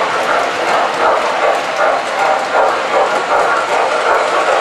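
MTH standard gauge tinplate train running on three-rail track, with the steady rumble and clatter of its metal wheels on the rails.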